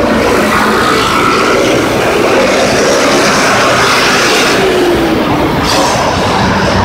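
Loud, steady noise of busy street traffic, a dense wash of passing vehicles with no single event standing out.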